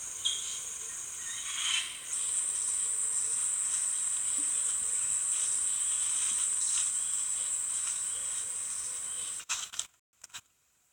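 Steady, high-pitched insect drone in forest ambience, with faint ticks, cutting off suddenly about nine and a half seconds in, followed by a few soft clicks.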